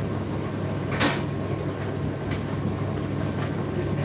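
A steady low machine hum with a sharp knock about a second in and a few fainter knocks later.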